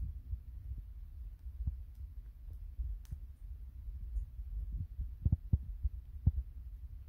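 Lionhead dwarf rabbit chewing a strand of hay close to the microphone: a rapid run of soft, low crunches, with a few sharper, louder ones toward the end.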